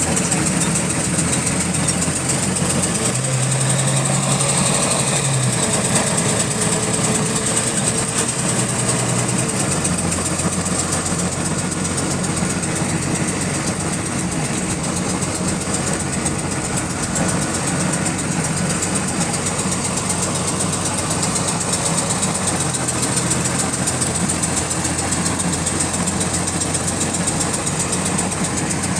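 A bus's diesel engine running, most likely at idle, with a fast, repetitive clicking that keeps time with engine speed. The low engine note shifts for several seconds early on and then settles. The cause of the clicking is unknown.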